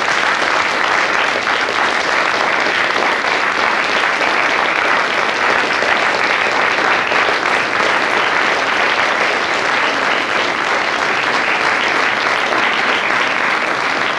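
Studio audience applauding, a steady sustained round of clapping.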